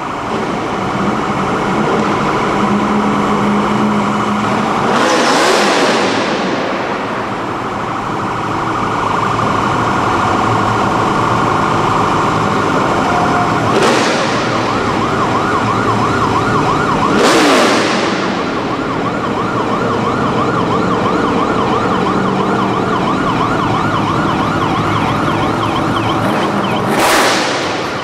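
Siren on a pickup with flashing blue emergency lights wailing and warbling as it escorts a stock car around the hall, with vehicles driving past. Four brief loud rushes of noise stand out, two with a falling pitch like a vehicle going by.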